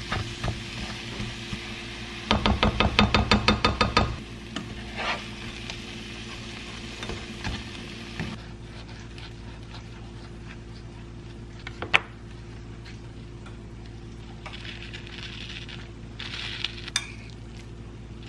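Spinach and tomatoes sizzling in a nonstick frying pan as a plastic slotted spatula stirs them, with a loud fast run of clacks from about two to four seconds in. Then, quieter, a fork prying apart an English muffin, with one sharp click about twelve seconds in and soft scraping near the end as mashed avocado is spooned on.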